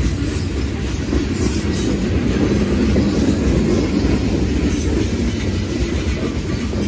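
Steady, loud rumble of the steel wheels of a rock train's open-top freight cars rolling past on the rails.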